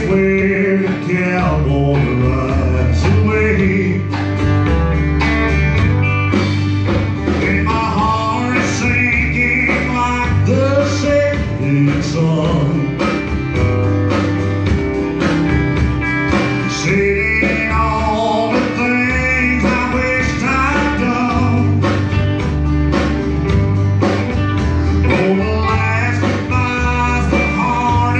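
A live country band playing, with a man singing over a drum kit, bass and guitars.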